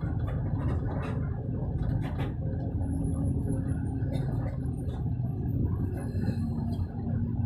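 Steady low rumble of a moving road vehicle's engine and tyres, heard from on board.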